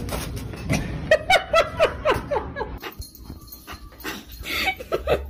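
A pet making a quick run of short, high cries, each falling in pitch, about four a second, then a few more near the end.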